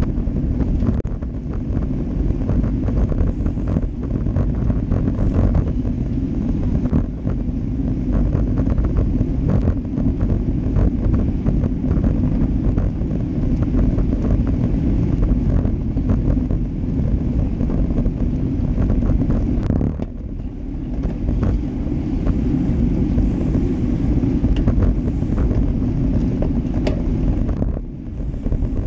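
Wind rumbling on a GoPro Hero Session's microphone as it rides on a road bike in a racing bunch, mixed with the hiss of tyres on asphalt and many small clicks and rattles. The rumble eases briefly about twenty seconds in and again near the end.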